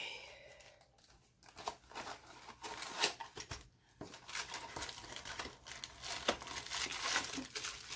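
Cardboard toy box being opened by hand: scattered rustling and scraping of the flaps and tabs, then from about four seconds in a busy crinkling as the plastic-bagged parts are pulled out.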